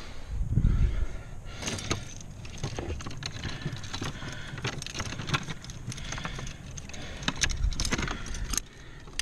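Metal climbing hardware, carabiners and cams on a harness gear loop, clinking and jangling as it is handled, in a run of sharp clicks. A low rushing noise on the microphone comes about a second in and again near the end.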